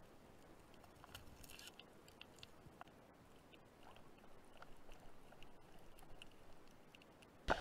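Faint underwater crackling with scattered small clicks, picked up by a submerged camera while a diver's gloved hand works in a rock crevice beside a speargun shaft. A sudden loud knock comes right at the end.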